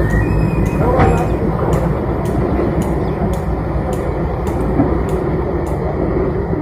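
Heavy excavator's diesel engine running steadily with a dense low rumble, and a regular light clicking about twice a second.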